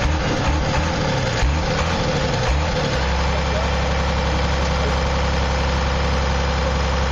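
Vehicle engine running unevenly for about three seconds, then settling into a steady idle.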